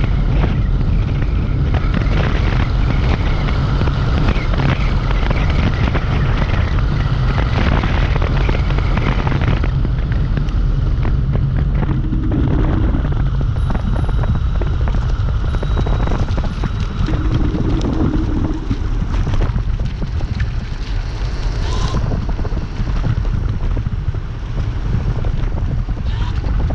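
Steady, loud wind rumble on the microphone over road and tyre noise from a Dualtron Compact electric scooter being ridden on a wet road.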